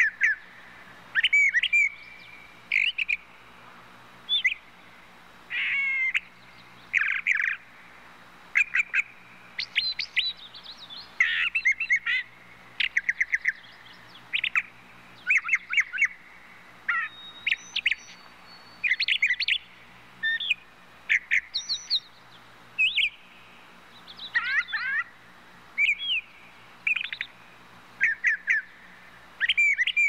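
A songbird singing a long, varied song of short, changing phrases: chirps, whistles, rapid trills and sweeping notes, with brief pauses between phrases.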